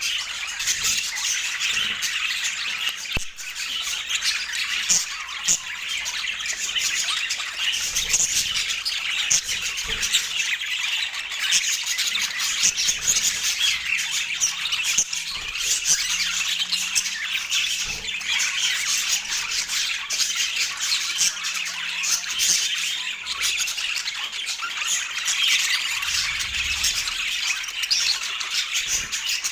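Budgerigars chattering: a steady stream of rapid squawks and chirps.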